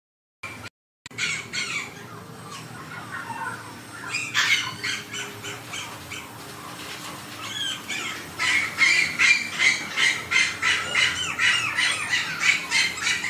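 Small puppy giving high-pitched, squeaky yips. They start in a few scattered calls, then become a fast run of about four a second from about eight seconds in.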